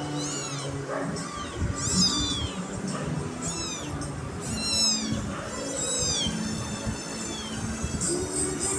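A kitten meowing over and over, about seven short high-pitched meows, each falling away in pitch at its end.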